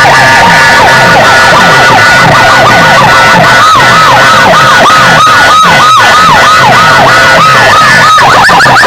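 Electronic siren effect played at full volume through a DJ sound system: a wailing tone that dips and rises a few times a second over steady high tones. A little before the end it switches to fast, rising, car-alarm-like whoops.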